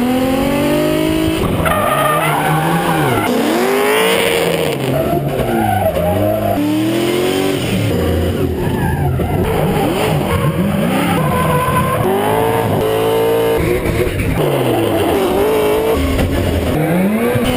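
High-revving gymkhana drift cars, their engines repeatedly rising and falling sharply in pitch as they are revved through slides, with tyres squealing and skidding.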